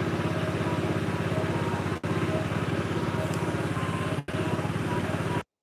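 Small motorcycle engine running steadily with an even, fast pulsing beat. The sound drops out briefly twice and cuts off abruptly near the end.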